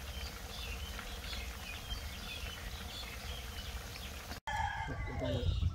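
Catfish deep-frying in a pot of oil: a steady sizzle with small crackles. About four seconds in the sound cuts, and a chicken gives a falling call.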